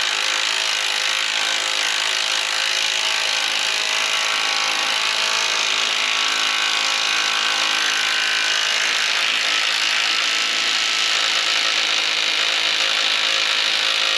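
Cordless impact wrench hammering steadily without a break as it runs axle mounting bolts tight.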